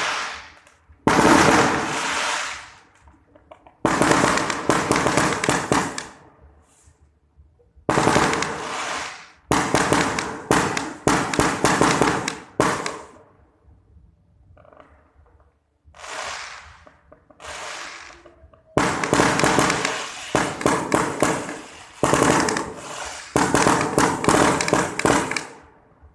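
Fireworks going off: a run of sudden loud bursts, each a sharp crack followed by a dense crackle that fades over a second or two. They come in clusters, with a couple of short lulls.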